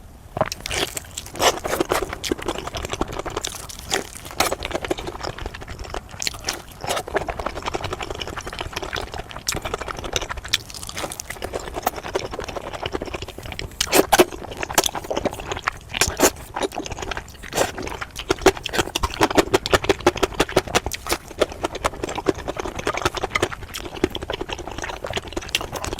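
Close-miked chewing and mouth sounds of someone eating, a dense run of quick wet clicks and smacks.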